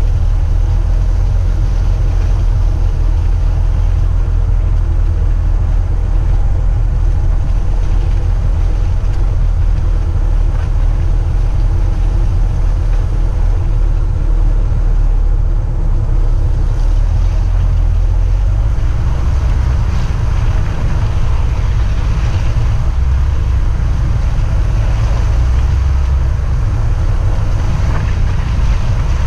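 A lifted VW Jetta wagon being driven: a steady engine hum over heavy low rumble, with wind on the microphone. The low rumble shifts in pitch about two-thirds of the way through, as the engine speed changes.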